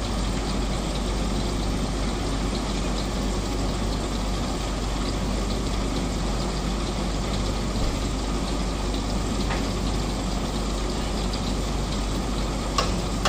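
Heavy vehicle engines idling steadily, with a short sharp click about nine and a half seconds in and a louder one near the end.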